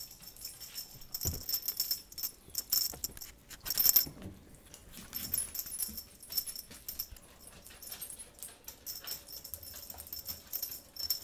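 Small bell on a cat toy jingling in irregular bursts as the toy is batted and shaken, with the loudest jangle about four seconds in.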